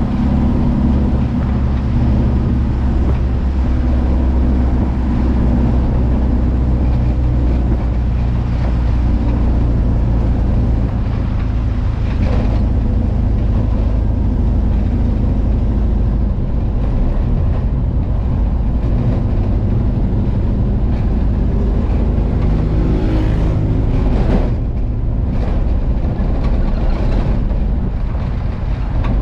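Engine of a VW Kombi van running steadily as the van drives along a road.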